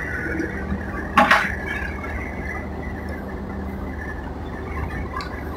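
Cement mixer truck's diesel engine running steadily, with one sharp knock about a second in.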